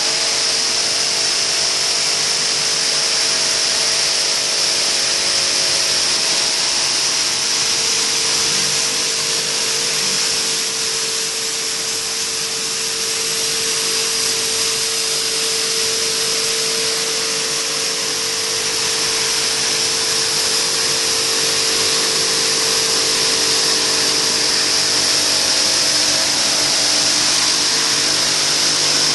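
Coil nail welding machine running continuously: a steady mechanical noise with a strong high-pitched hiss and a faint steady hum beneath.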